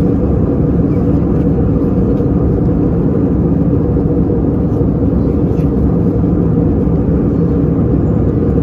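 Steady in-cabin drone of an Airbus A321LR airliner in cruise: engine and airflow noise heard through the cabin as a deep, even rumble with a faint steady hum in it.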